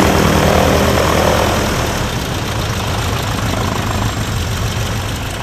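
Boeing Stearman biplane's radial engine idling with the propeller turning, a steady low beat that slowly grows quieter over the last few seconds.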